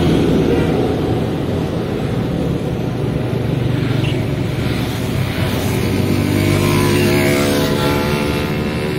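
Road traffic passing close by: motorcycles going past one after another, with engine and tyre noise. A steady engine hum joins in about halfway through.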